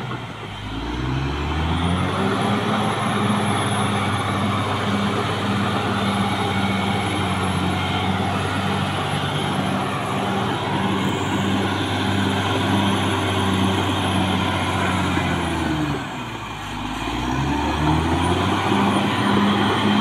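Caterpillar D6R XL bulldozer's diesel engine revving up and running steadily with a thin high whine above it. It drops away about three-quarters of the way through, then revs up again near the end.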